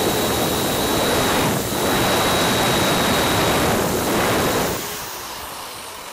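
Handheld electric drill running, its bit boring a hole through a black plastic part, with a steady high motor whine over the cutting noise. It dips briefly twice and grows quieter after about five seconds as the drill eases off.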